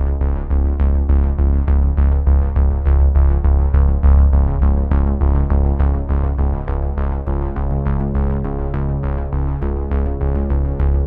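Background music: a synthesizer piece with quick repeated notes, about four a second, over a deep held bass.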